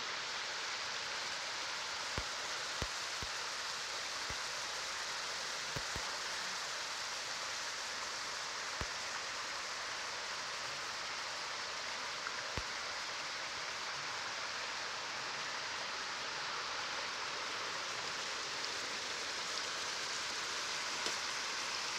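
Shallow stream rippling over a pebble bed: a steady rushing hiss of water. A few short faint knocks come in the first dozen seconds.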